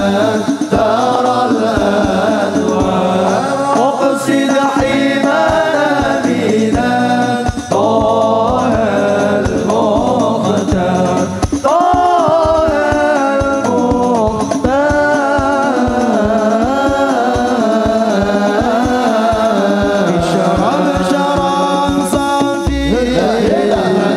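A man sings an Arabic devotional chant (sholawat) through a microphone and PA in a melismatic, wavering melody, over musical accompaniment with a regular low beat.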